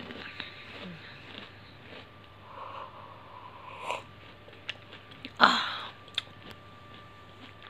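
Mouth sounds of someone snacking: small crunches and clicks of chewing crunchy besan namkeen (fried gram-flour snack), with sips of hot tea from a mug. One louder, short noise comes about five and a half seconds in.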